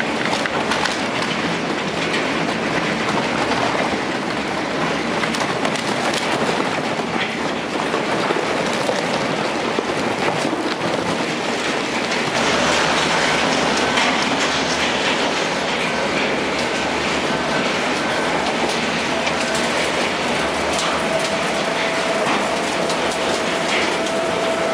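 Industrial waste shredder running under load, tearing up plastic drums and mixed waste with a loud, continuous clatter and grinding. A faint steady whine joins in during the second half.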